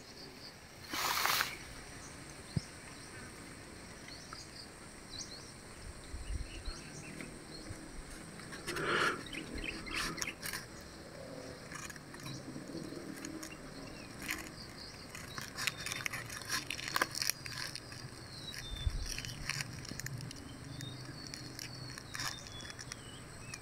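Dry banana leaves rustling and crackling as a hand turns them over, in scattered bursts. Faint bird chirps can be heard in the second half.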